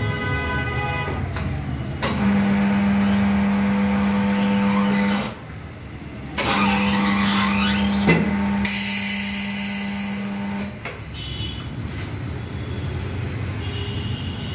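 Electric turntable motor of a tyre-changing machine running with a steady hum, in two runs of a few seconds each with a short pause between, while a tyre's bead is worked onto the wheel rim. A single sharp click comes about eight seconds in.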